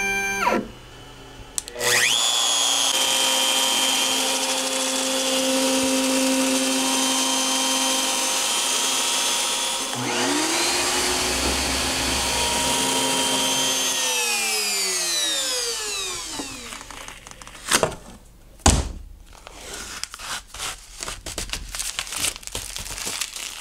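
CNC router spindle spins up and runs steadily with a high whine. About ten seconds in, a shop vacuum feeding a cyclone dust separator starts up, then winds down with falling pitch a few seconds later. Near the end come two sharp knocks and the crackling of protective backing film being peeled off acrylic.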